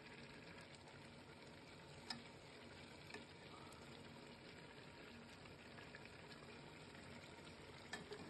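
Near silence: a faint steady hiss with a few faint clicks, the clearest about two seconds in and two more near the end.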